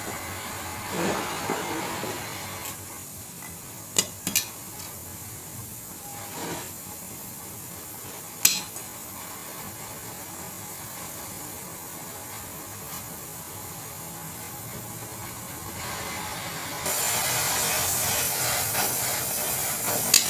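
Gas welding torch hissing steadily as it welds a steel motorcycle exhaust, with three sharp knocks at about four and eight seconds in. The hiss gets louder near the end.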